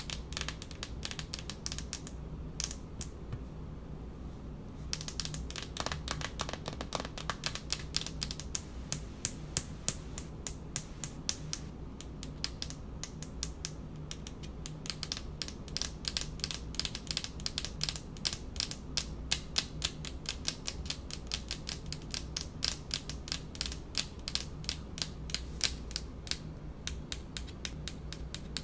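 Long painted fingernails tapping quickly on a hard speckled countertop: fast runs of sharp clicks, thinning out about three to five seconds in and pausing briefly near the middle, over a faint steady hum.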